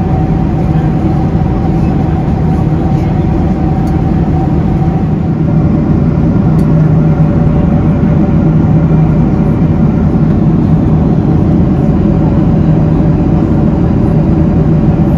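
Steady cabin noise of a Boeing 767-300ER in flight: the drone of its General Electric CF6 turbofans and the rush of air, with a few low steady hums. It gets slightly louder about five seconds in.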